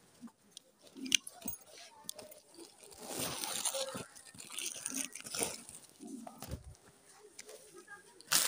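Plastic courier packets rustling and crinkling as a hand rummages through a fabric delivery bag, with scattered clicks and knocks. The rustling is loudest around three to five seconds in, and a sharp knock comes near the end.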